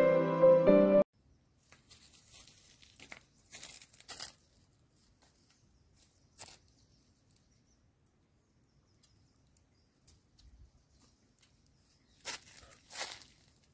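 Background music cuts off about a second in. After it come short bursts of dry leaves and twigs rustling and crackling as a karvanda bush is handled and its berries are picked, several near the start, one brief one midway, and a louder pair near the end.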